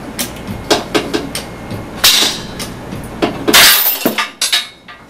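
Metolius quickdraw carabiner being pull-tested over an edge: a run of sharp clicks and cracks, with loud cracks about two seconds in and three and a half seconds in, as the carabiner fails under load.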